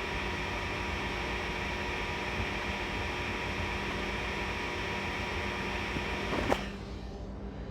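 Steady ship engine-room machinery noise with a constant hum. About six and a half seconds in it cuts off with a sharp click, leaving a quieter, duller rumble.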